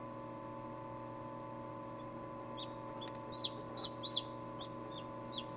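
Newly hatched chicken chick peeping: a run of short, high peeps about two a second, starting about halfway in, over a steady hum.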